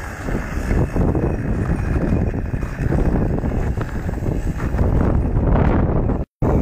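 Wind buffeting the microphone: a loud, steady rumbling rush with no clear engine note, broken by a brief total dropout near the end.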